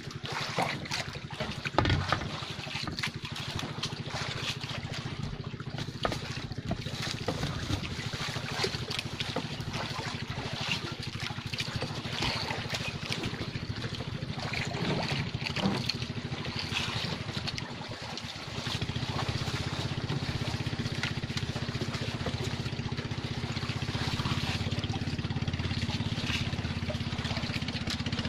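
Outrigger fishing boat's small engine idling steadily, with scattered knocks and clicks on deck. About two-thirds through the engine dips briefly, then runs louder.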